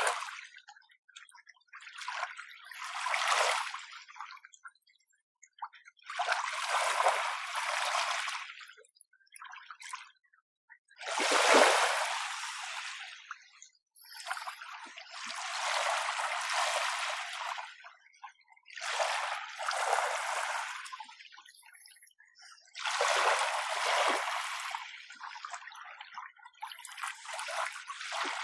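Small, gentle sea waves washing in and drawing back on the shore, about seven washes, each swelling and fading over two to three seconds with quiet pauses between.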